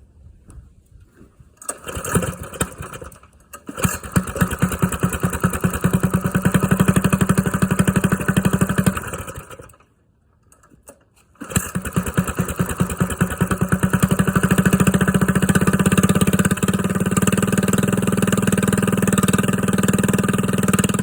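Small engine with a newly fitted, larger exhaust pipe starting, running with distinct firing pulses and stalling about nine seconds in. It is restarted a couple of seconds later and revved up, its pulses running together into a steady note toward the end.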